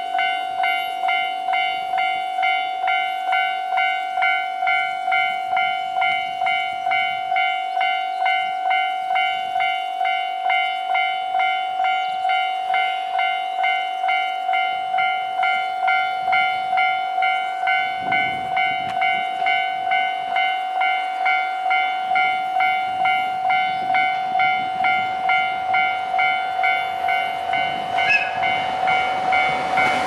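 Japanese level-crossing warning bell ringing steadily, an electronic bell tone repeating about twice a second, signalling an approaching train. Near the end a short high 'pii' whistle sounds from the approaching KiHa 261 series diesel limited express.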